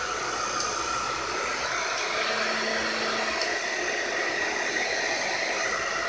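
Handheld hair dryer running steadily: a constant rush of blown air with a faint high motor whine.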